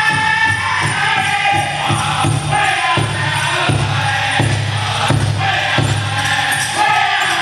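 Powwow drum group singing a chicken dance song in high, strained voices over a steady beat on a large shared drum.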